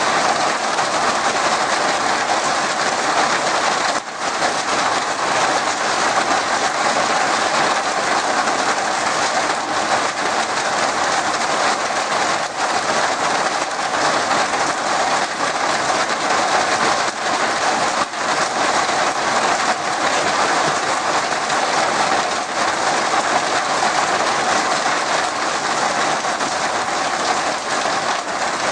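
Heavy rain falling steadily on shrubs and foliage: a dense, even hiss with no let-up.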